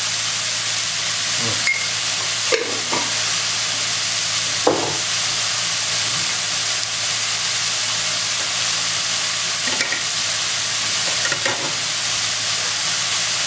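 Minced pork and diced vegetables sizzling steadily in a hot wok, with a few brief knocks along the way.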